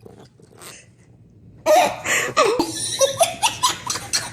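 Laughter, loud and breaking into short peals with rising and falling pitch, starting suddenly about one and a half seconds in after a quiet start.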